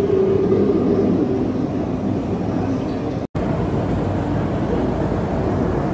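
Steady background rumble of an aquarium hall with faint voices in it, broken by a brief complete dropout a little past halfway.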